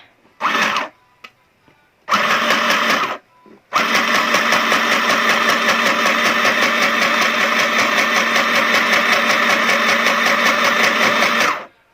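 Mini portable electric sewing machine run by its on/off button instead of the foot pedal: two short runs, then stitching steadily for about eight seconds before it stops suddenly.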